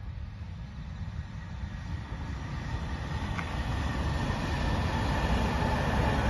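Shiokaze limited express electric train approaching and starting to pass, its wheels rumbling on the rails and growing steadily louder, with a faint whine above the rumble and a single click about three and a half seconds in.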